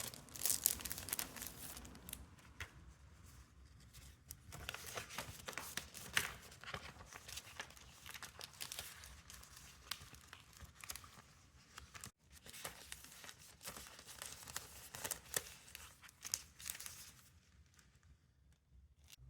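Close-up crinkling, rustling and tearing of packaging material being handled, with many small sharp crackles.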